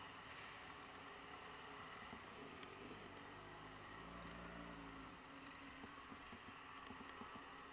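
Very faint, muffled hiss with a low engine hum that swells briefly about four seconds in, from motorcycles and scooters moving off.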